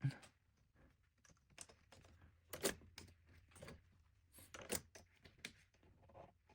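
Light, irregular clicks and ticks of a Nakamichi 700 cassette deck's transport parts being worked back and forth by hand, freshly greased.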